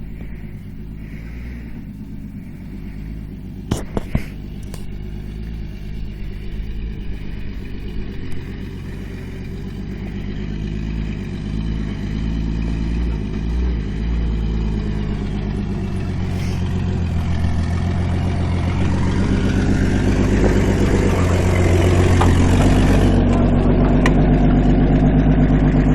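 Off-road 4x4's engine running under load, growing steadily louder through the second half as it works harder, with a couple of sharp knocks about four seconds in.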